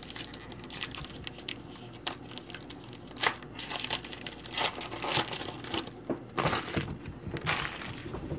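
Wrapper of a 2018 Classics football card pack crinkling and tearing as it is opened by hand, a string of short crackly rustles and rips that gets busier in the second half.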